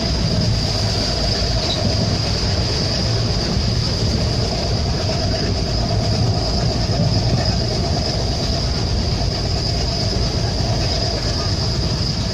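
WDM3A diesel locomotive's turbocharged ALCO 16-cylinder engine running, a steady high-pitched turbocharger whistle held over a deep engine rumble.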